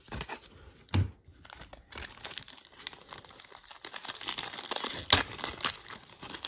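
A sealed trading-card pack's plastic wrapper crinkling and tearing as it is pulled open by hand, with sharp crackles loudest about five seconds in. A single thump about a second in.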